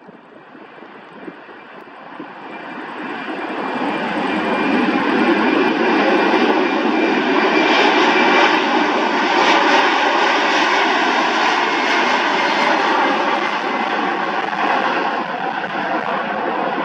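Twin-engine jet cargo plane's turbofan engines whining and rushing with steady high tones as it rolls past close by on the runway. The sound grows louder over the first few seconds, then holds steady.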